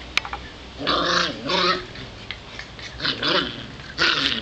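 Golden retriever puppies growling in three short bouts.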